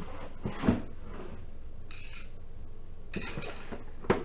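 Cardboard boxes of treadmill parts being handled: a few sharp knocks and clinks, loudest about a second in and near the end, with short spells of cardboard scraping and rustling between.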